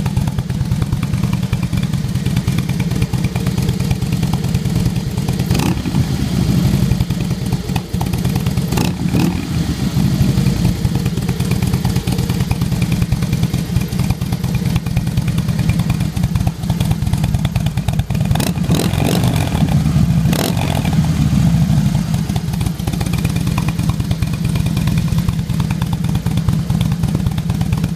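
2006 Harley-Davidson Softail Deluxe's Twin Cam 88B V-twin running steadily at a standstill through a Bassani Road Rage 2-into-1 exhaust, with a few short clicks along the way.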